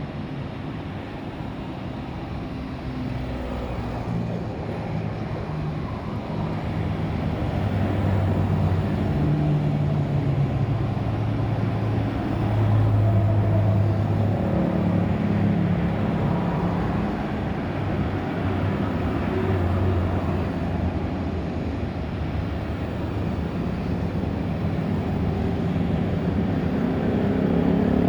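An engine running steadily, its pitch stepping up and down every second or so.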